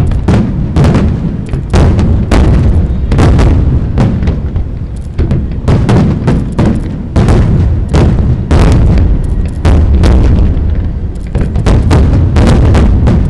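Aerial fireworks shells bursting one after another in a dense barrage: several loud booms and cracks a second over a continuous low rumble.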